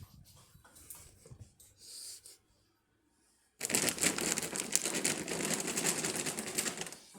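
A bag of dog treats being shaken and crinkled: a dense rattling rustle that starts about halfway through and runs for roughly three and a half seconds. It is the treat-bag sound used to call the puppies over for a treat.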